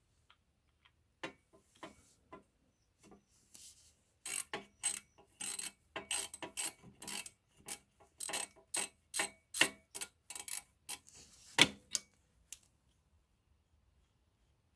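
A run of sharp mechanical clicks as the factory oil fill cap is worked loose. A few scattered clicks come first, then they quicken to several a second about four seconds in, with one loudest click near the end before they stop.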